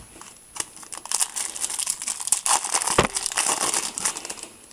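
Foil wrapper of a Topps Match Attax trading-card booster pack crinkling and tearing as it is ripped open and the cards pulled out, from about a second in until near the end, with one sharp knock about three seconds in.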